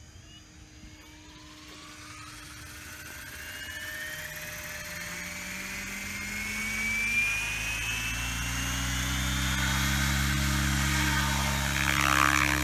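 T-Rex 700E electric RC helicopter spooling up for takeoff: the motor's whine climbs steadily in pitch while the rotor's beat grows louder over several seconds. The sound then levels off at flying speed as the helicopter lifts off near the end.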